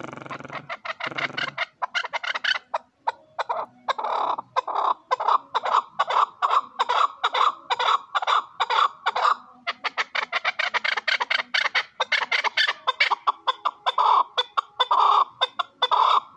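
Caged chukar partridge calling: a long run of rapid, repeated clucking 'chuk' notes, about three a second, breaking off briefly near the middle before starting again.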